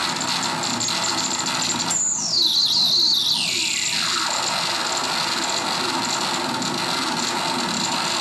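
Hand-built circuit-bent analog noise synth putting out a dense, harsh, glitchy noise texture. About two seconds in, a downward sweep drops from high to low over about two seconds, with a high warbling tone above it.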